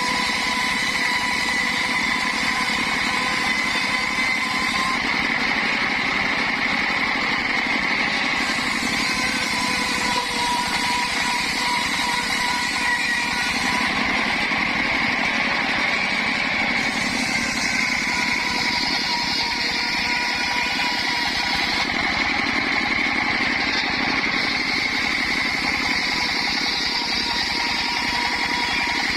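Mobile circular saw machine running with a steady high whine, its pitch sagging slightly a few times, as while sawing waru (sea hibiscus) timber.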